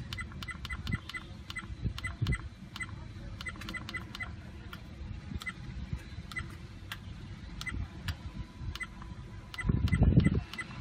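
APEMAN C550 dash cam button beeps: short, same-pitched electronic beeps with clicks, sometimes several a second, as its settings menu is stepped through, over a steady low rumble. A louder, brief low-pitched rumble comes near the end.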